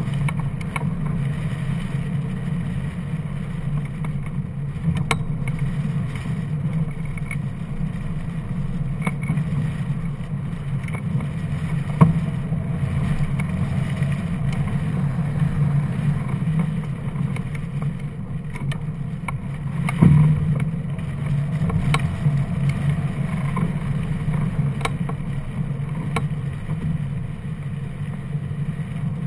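Steady low rumble of airflow buffeting the microphone of a camera mounted on a hang glider in flight, with a few brief sharp knocks, the loudest about twelve and twenty seconds in.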